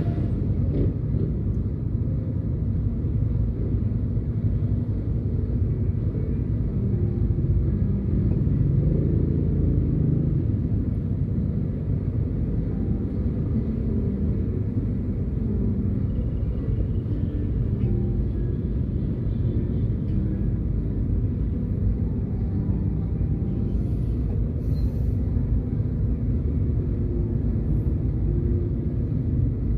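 Steady low rumble of a car being driven, engine and road noise as picked up inside the car by a dashcam.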